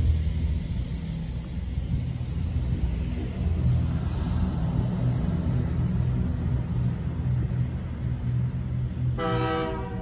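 Low, steady diesel rumble of an approaching locomotive; about nine seconds in, its air horn starts sounding and is held on.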